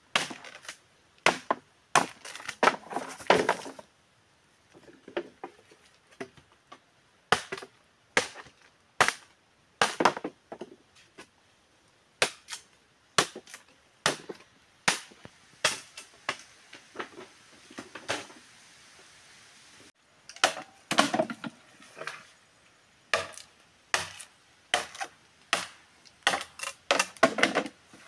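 Dry bamboo poles knocking and clattering against each other as they are picked up, dropped and moved: sharp, irregular knocks about once a second, sometimes several in quick succession.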